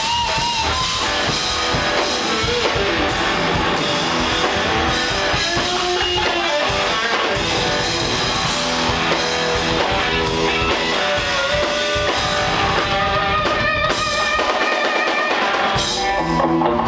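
Live rock band playing an instrumental passage: electric guitar playing lead lines with bent, wavering notes over a drum kit. The drums drop back briefly near the end.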